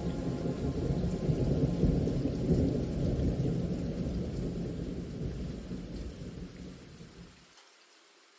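A long roll of thunder over rain, swelling in the first few seconds and then slowly dying away. The low rumble cuts off abruptly near the end, leaving only a faint hiss.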